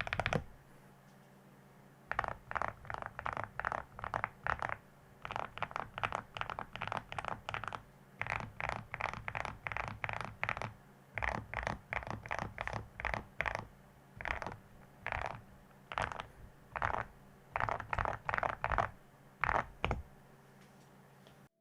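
Typing on an Akko SPR75 mechanical keyboard fitted with Awekeys metal keycaps: quick runs of keystrokes in bursts of a second or so, separated by short pauses.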